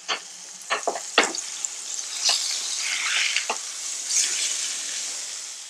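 Ribeye steak and melted butter with garlic sizzling in a hot pan, a steady hiss with several sharp clicks scattered through, the loudest about a second in.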